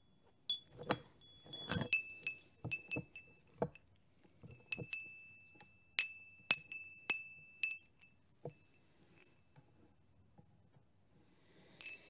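Small metal bells struck one after another at an irregular pace, each a bright high ring at the same few notes that dies away within about a second, with a few dull knocks mixed in. After a pause of about three seconds, one more strike comes at the very end.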